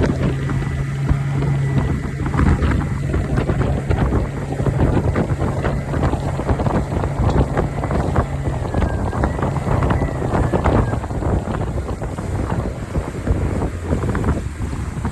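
Suzuki 90 hp outboard running steadily under way, its engine note mixed with water rush and heavy wind on the microphone; it runs properly after a bad fuel injector that caused power loss was replaced. The steady engine note fades about two-thirds of the way through, leaving wind and water noise.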